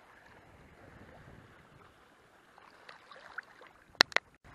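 Faint, steady wash of calm sea water lapping against shoreline rocks. Near the end, two sharp clicks a fraction of a second apart stand out as the loudest sounds.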